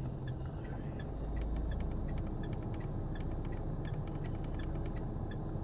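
Car engine idling, heard as a steady low hum inside the cabin, with a run of short, faint ticks repeating about twice a second.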